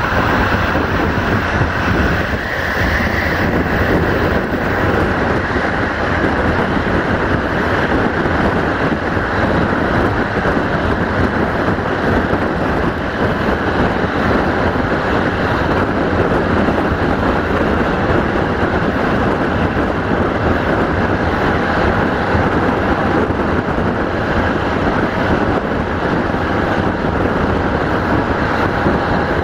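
Passenger train running at speed, heard from an open carriage window: a steady rush of wind mixed with the rumble of wheels on the rails.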